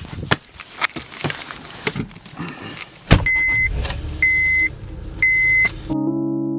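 Footsteps, then a car door shutting with a sharp thud about halfway through. A low rumble follows, under three evenly spaced high chime beeps from the car. Electric-piano music cuts in abruptly near the end.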